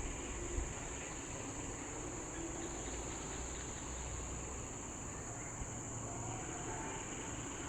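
Steady, high-pitched chorus of insects droning without a break, over a low background rumble.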